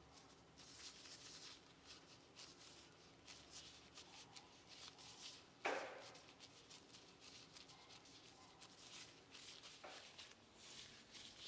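Faint rustling and crinkling of disposable plastic gloves as hands work a salted egg yolk into a ball of soft mung bean paste and roll it smooth, with one louder rustle a little over halfway through.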